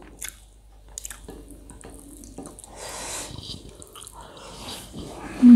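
Close-up eating sounds: a person chewing a mouthful of rice and pork curry eaten by hand, with small wet clicks and soft squishy mouth noises. A short, loud low tone comes near the end.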